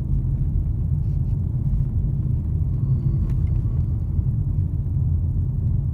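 Steady low rumble of a vehicle driving along a road: engine and tyre noise heard from inside the cab.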